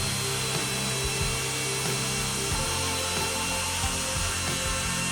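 Electric woodworking power tool running at a steady speed, its motor giving a constant whine.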